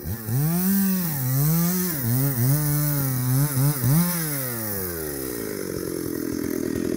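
Two-stroke chainsaw working on a log, revved hard with its pitch repeatedly dipping and recovering. About four seconds in the revs fall away and the saw settles to a steady idle.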